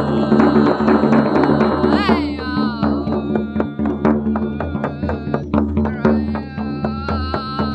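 Improvised drum music: a hand drum struck in quick, uneven strokes over a sustained low drone. A high wavering tone bends up and down about two seconds in, and a steadier high tone holds near the end.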